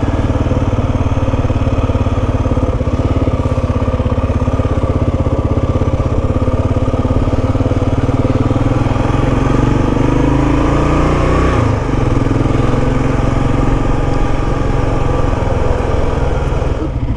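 Kawasaki KLR650's single-cylinder engine running as the motorcycle rolls slowly along a street, with a steady pulsing beat. The engine rises in pitch for a moment about two-thirds of the way through, then drops back.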